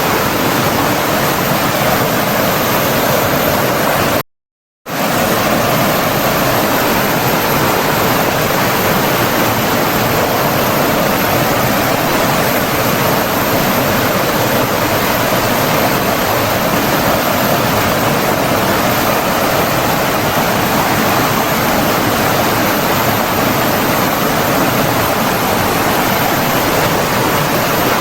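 Flowing water rushing steadily. The sound cuts out completely for about half a second about four seconds in, then comes straight back.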